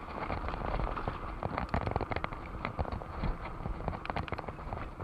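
Mountain bike rattling along a rough concrete lane: fast, irregular clicks and clatter from the bike over a steady low rumble of tyres and wind.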